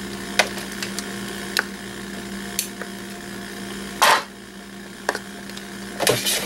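Side cutters snipping the thin wires on an alarm sensor's circuit board, a few sharp clicks, followed by a brief rustling scrape about four seconds in and more handling noise near the end as the board is handled. A steady low hum runs underneath.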